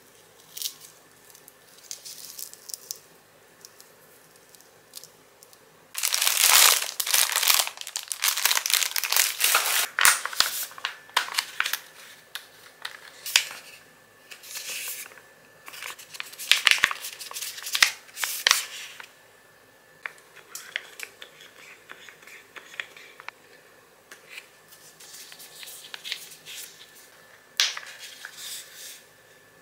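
Hands handling small travel items close to the microphone: loud bursts of crinkling and tearing from about six to nineteen seconds in, with sharp clicks among them, then quieter rustling and small plastic handling sounds.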